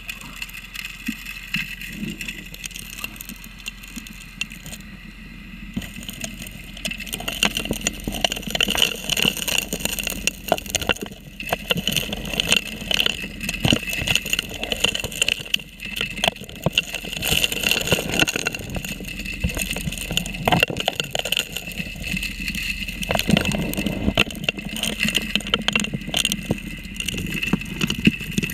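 Heard underwater, a 3-inch gold dredge's suction nozzle sucks up streambed gravel. Stones click and clatter into the intake over the steady drone of the dredge's engine and pump. The clatter gets busier and louder about seven seconds in.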